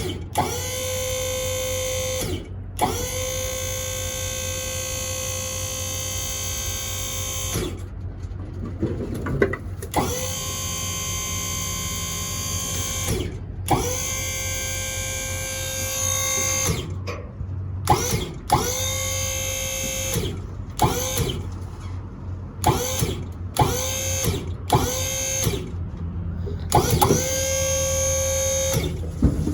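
Dump trailer's electric hydraulic pump motor whining as it tips the bed to dump the load. Each run starts with a rising whine, holds steady and winds down. It runs in long stretches of several seconds, then in short bursts of about a second, over a steady low hum.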